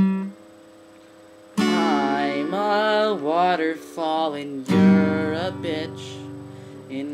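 Acoustic guitar song: one strummed chord rings and fades, then after a short pause strumming picks up again under a voice singing a melody.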